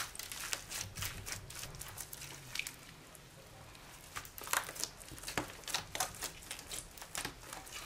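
Glittery slime with beads mixed in being folded and pressed by hand, giving irregular wet clicks and pops as air pockets squeeze out. A single sharp click marks the start.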